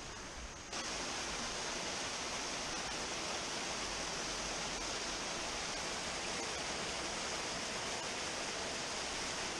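A small woodland waterfall rushing steadily into a rocky pool. The rush jumps louder about a second in, then holds.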